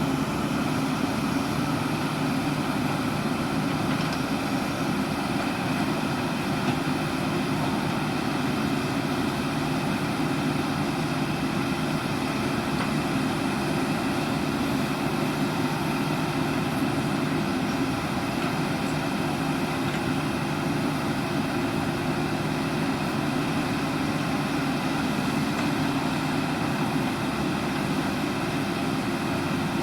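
JCB backhoe loader's diesel engine running at a steady speed, with no revving or changes in load.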